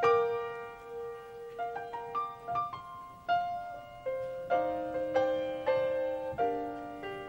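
Solo piano playing a slow introduction: single notes struck one after another, each left to ring and fade, with lower notes joining about halfway through.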